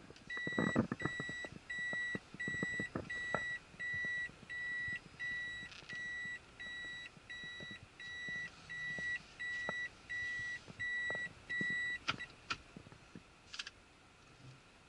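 Toyota Harrier Hybrid's reverse-gear warning beeper sounding in the cabin: a repeated high beep that tells the driver the car is in reverse. It stops about twelve seconds in, with a few clicks near the start.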